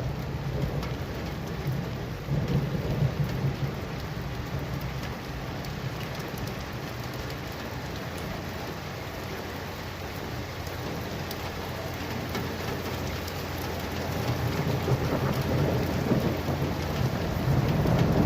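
Thunderstorm: steady heavy rain with thunder rumbling, swelling about two seconds in and building again louder near the end.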